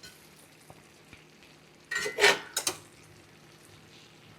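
A utensil clanking and scraping against a skillet of stir-frying cabbage and ground beef, a short cluster of sharp knocks about two seconds in, over a faint steady sizzle.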